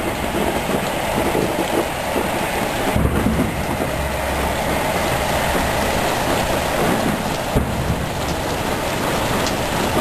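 Violent thunderstorm with heavy rain and strong wind: a steady loud rush, with a heavier low rumble about three seconds in.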